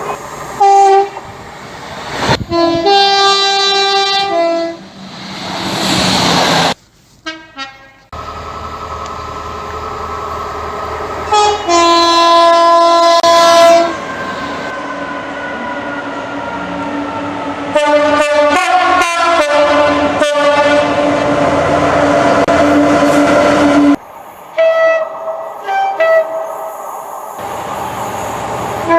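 Horns of British passenger trains sounding in a run of short toots and longer blasts, cut together from several passing trains. Between the horns there is the running noise of a train going by, with a tone that slowly falls in pitch.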